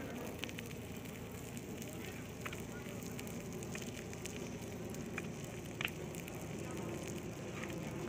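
Large open fire of seized cannabis bricks burning: a steady hiss with a few sharp crackles and pops scattered through it.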